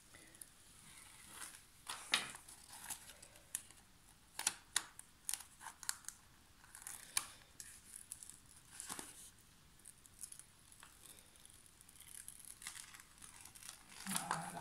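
The printed protective paper sheet of a diamond-painting canvas being peeled back off the glue-covered canvas and handled: irregular sharp crackling and rustling, busiest near the end.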